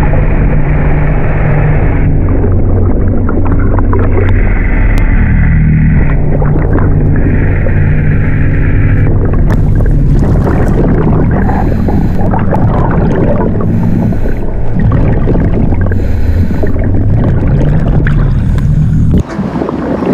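Steady low engine drone of a canal motorboat passing close by, carrying on as the camera goes underwater. Gurgling, bubbling water noise joins it from about halfway, and the sound drops away suddenly near the end.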